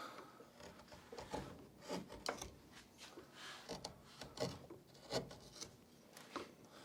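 Hand carving tool paring and scraping into a tough beaver-chewed stick: a series of short, irregular cutting strokes.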